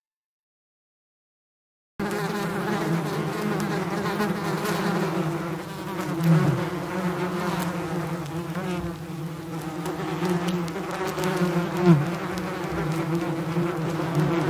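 Silent for about two seconds, then a steady insect buzz of the bee or wasp kind, its pitch wavering. Two brief louder swells come about six and twelve seconds in.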